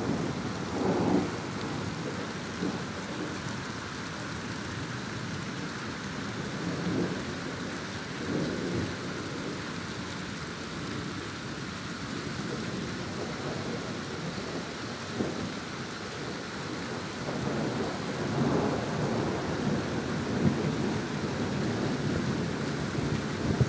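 Thunderstorm: a steady hiss of rain with thunder rumbling in low swells, about a second in, around eight seconds in, and again in the last third.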